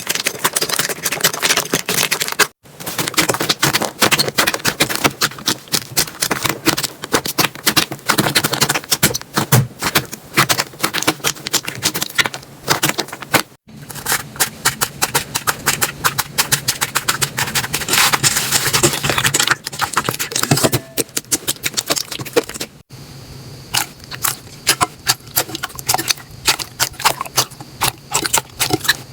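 Slime being squeezed and pressed by hand, making dense crackling and popping clicks. The sound breaks off briefly three times as one clip gives way to the next, and the clicks are sparser after the last break.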